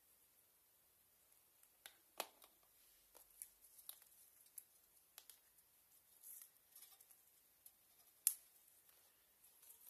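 Faint, scattered clicks and short snips of small parts being handled during the build, with two louder sharp clicks, one about two seconds in and one about eight seconds in.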